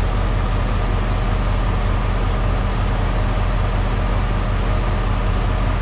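Camaro's tuned-port V8 idling steadily under the open hood, with the air conditioning compressor running as the system takes its R12 charge. It is a constant low hum with an even rushing noise over it.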